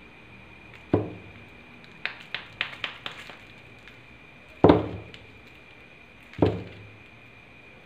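Balls of reformed gym chalk being handled and set down on a stone surface: three low thuds as they land, with a quick run of light taps between the first two.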